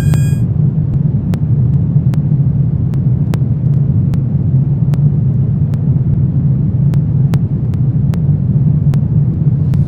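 A steady, deep rumbling drone from a horror ambience track, with faint sharp ticks repeating about every three-quarters of a second.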